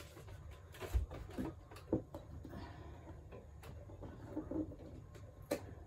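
A thin PVC wall panel being pressed onto the wall by hand: scattered soft knocks and plastic rustling, the sharpest knocks about one and two seconds in and again near the end.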